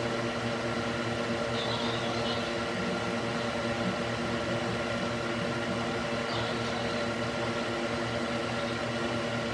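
Electric cooling fan mounted in a wooden box, running steadily: an even whir over a hum made of several steady tones.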